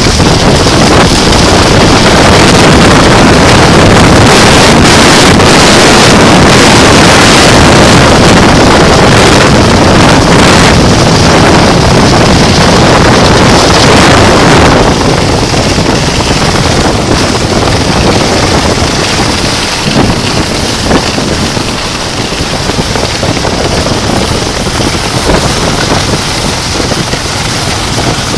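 Heavy wind noise buffeting the microphone during a fast downhill run on a groomed ski slope, mixed with the hiss of snow sliding underfoot. It eases and turns duller about halfway through.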